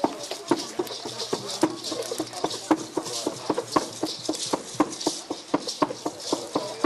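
Rhythmic knocking, about three to four sharp strikes a second at a fairly even pace, over a steady high hiss.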